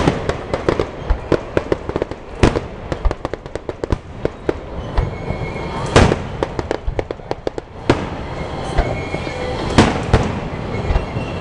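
Aerial firework shells bursting with several loud booms a few seconds apart, and a rapid run of small pops between them.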